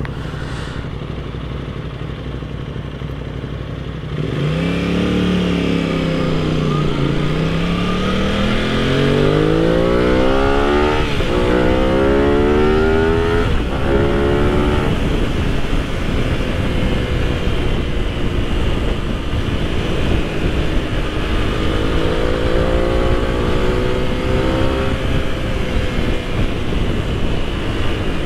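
Aprilia sport motorcycle engine running low at first, then pulling away about four seconds in and accelerating up through the gears, the pitch climbing and dropping back at each upshift several times. It then settles into steady cruising with wind rush, and the revs climb again for a few seconds near the end.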